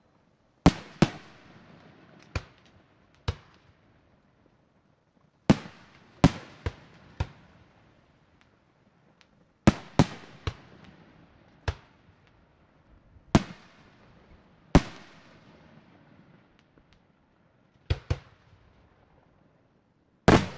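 Aerial firework shells bursting: sharp bangs, singly and in quick pairs or clusters every second or few, each followed by a short echoing tail.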